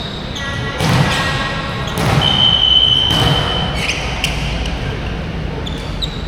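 Volleyball game sounds in a gym hall: thuds of the ball, and a single steady whistle blast of about a second and a half starting about two seconds in, typical of a referee stopping play.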